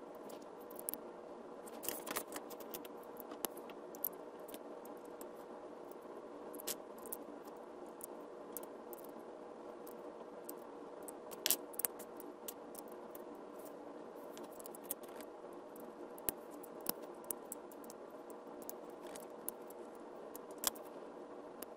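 LEGO plastic bricks handled and pressed together: scattered sharp clicks and light rattles, loudest a little over halfway through, over a faint steady hum.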